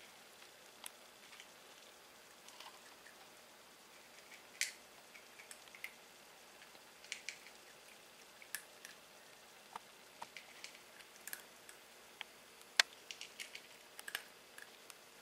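Faint, irregular small clicks and ticks, scattered and coming in short clusters, over a low steady hiss; one sharper click stands out about three quarters of the way through.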